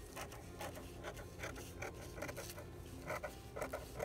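Scissors snipping through a thin paper napkin: a series of quiet, short, irregular snips.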